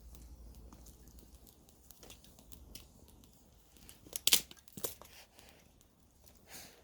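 Campfire wood crackling: scattered small ticks and snaps, with two loud sharp pops a little past the middle and a softer one near the end.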